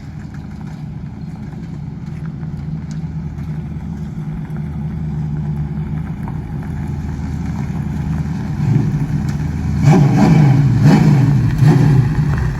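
Race car engine running at the track, growing steadily louder until it is loudest about ten seconds in, then dropping away near the end.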